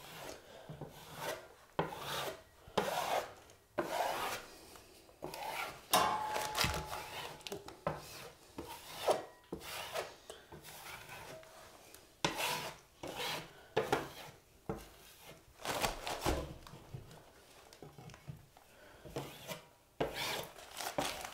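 A steel drywall knife scraping over joint compound on a wall in a series of separate strokes about a second apart. The setting-type mud has just begun to firm up, and the knife is polishing it smooth.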